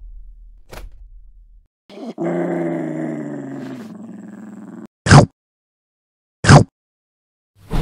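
Dog growling for nearly three seconds, slightly falling in pitch, followed by two short, loud sounds about a second and a half apart.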